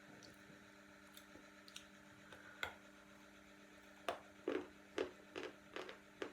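Khrapovsky chalk, porous and crumbly, being bitten and chewed. There is one sharp crunch a little past two seconds in, then a run of about six crunches, roughly two a second, near the end, over a faint steady hum.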